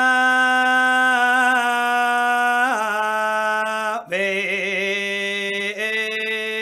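A solo voice chanting Samaveda sama gana in long, drawn-out held vowels. The pitch wavers briefly about a second in and steps down near three seconds. After a short break about four seconds in, the voice resumes on a lower held note with quick pitch quavers.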